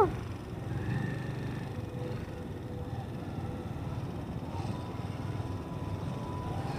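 Motorcycle engine running at low revs as the bike rolls slowly, a steady low rumble. A faint steady high tone joins about halfway through.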